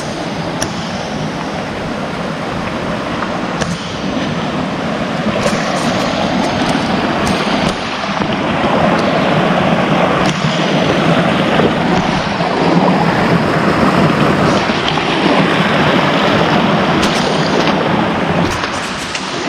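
Waterfall water rushing and splashing in a steady, loud hiss that grows louder over the first half.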